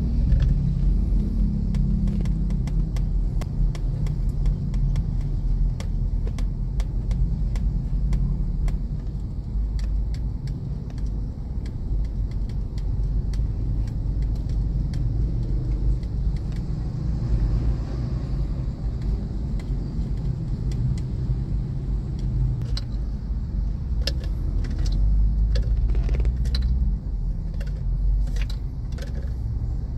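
Car cabin noise while driving slowly: a steady low rumble of the engine and tyres, with many small clicks and rattles scattered through it, more of them in the last several seconds.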